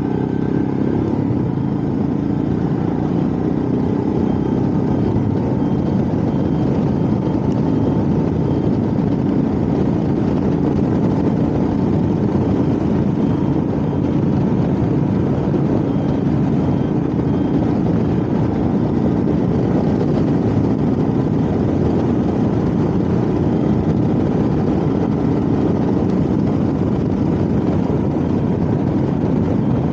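Royal Enfield Himalayan motorcycle's single-cylinder engine running steadily while riding along, heard through a bike-mounted microphone.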